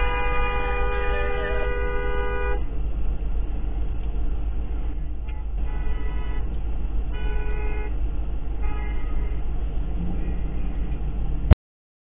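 Car horn sounding two notes at once: one long blast of about two and a half seconds, then four shorter honks, as a warning at a car crossing close in front. A steady low rumble runs underneath, and the sound cuts off abruptly near the end.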